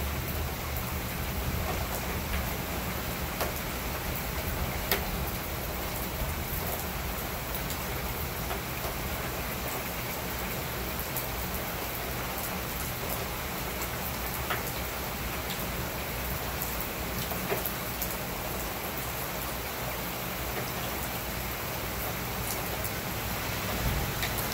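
Steady heavy rain falling on concrete paving and a house, with scattered sharp ticks of single drops landing.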